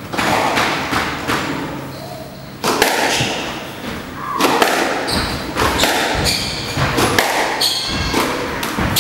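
A squash rally starting about three seconds in: the ball cracks off racquets and thuds against the court walls at an uneven pace, with short high squeaks of shoes on the wooden floor.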